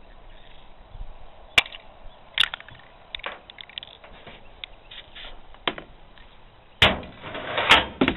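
A few separate sharp knocks or clicks, then a longer, louder noisy stretch near the end with more knocks inside it.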